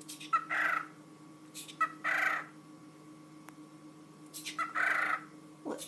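Male cockatiel mimicking learned human words in a hissy whisper: three short raspy phrases about a second and a half apart, each opening with a brief chirp-like click.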